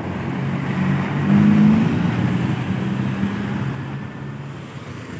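Tour bus diesel engine running as it passes on the road, its pitch rising briefly about a second and a half in, then fading near the end.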